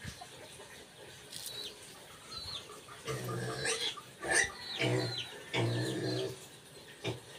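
Chickens calling: short, high falling peeps throughout, and from about three seconds in several low, drawn-out clucks of about half a second each.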